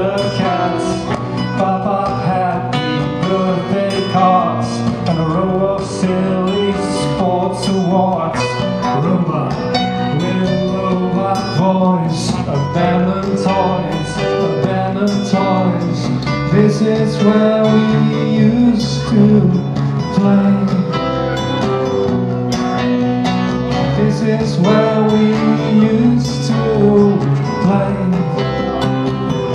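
Live band playing a song on amplified acoustic guitar, electric guitar and drums, with a man singing lead.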